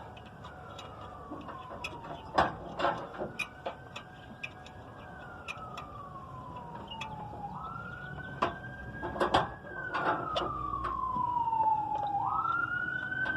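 A wailing siren rises quickly and falls slowly in cycles of about five seconds. Sharp knocks and clanks sound over it.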